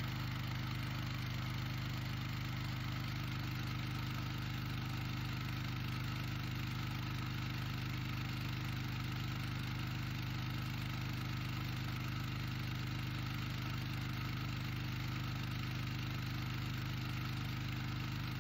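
A 4-gallon-per-minute pressure washer's engine running steadily at an even pitch, driving a sewer jetter hose.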